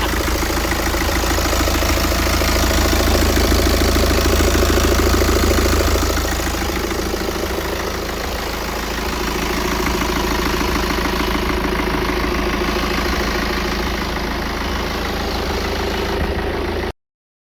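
BMW X3 sDrive18d's N47 four-cylinder diesel engine idling steadily, running on its newly fitted timing chain.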